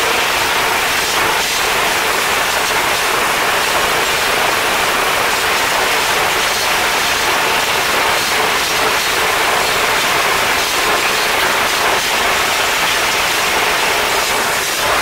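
Tractor-mounted rotary drum mower running while cutting grass, with the tractor running under it: a loud, steady mechanical noise that does not change.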